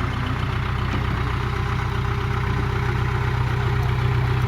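Backhoe loader's diesel engine idling steadily, growing a little louder toward the end.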